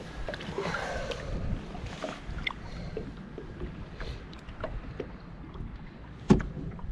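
Water lapping and sloshing at the side of a boat, with small splashes around a large pike held in the water by its tail, and wind buffeting the microphone. One sharp knock about six seconds in.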